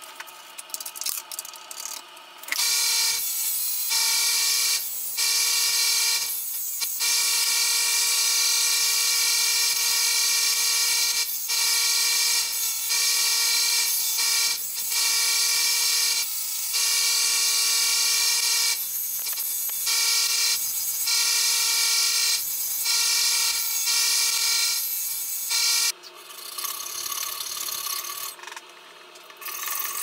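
Small bench belt sander with a narrow vertical belt running and grinding a silver clasp piece: a steady whine with several tones that starts abruptly a couple of seconds in, dips briefly in level every few seconds, and stops about four seconds before the end, giving way to quieter rubbing.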